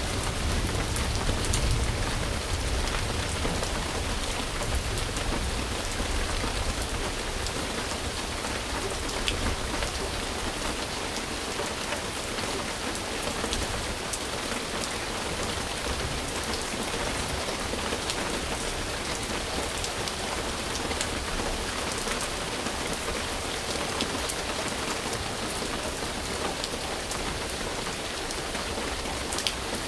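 Steady, dense rain falling on surfaces, with scattered individual drop ticks. A low rumble underneath is strongest in the first few seconds and then fades.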